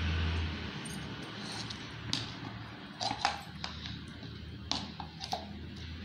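Scattered sharp plastic clicks and taps: a metal spoon knocking about inside a plastic ice-cream tub and the tub's plastic lid being handled and pressed back on.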